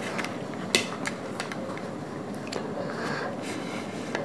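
A few light clicks and taps of tableware, a steel spoon and plates against glass bowls of dal, over a steady background hiss; the sharpest tap comes about three-quarters of a second in.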